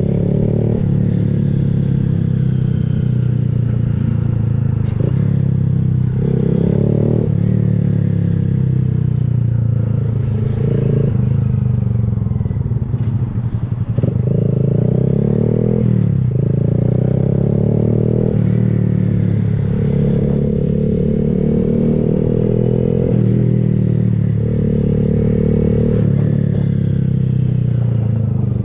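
Honda Grom's single-cylinder engine running through a Kemimoto aftermarket exhaust while riding: the engine note climbs and drops sharply over and over as the rider works the throttle and shifts gears. A low wind rumble runs underneath.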